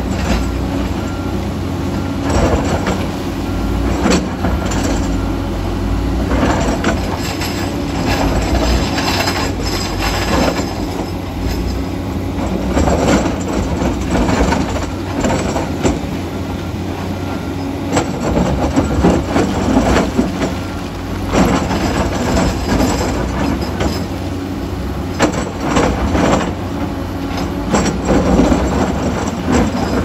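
Diesel engines of a Komatsu D85EX crawler dozer and a tracked excavator working a rocky cut. A steady engine drone runs under frequent clanks and squeals of steel tracks and rock.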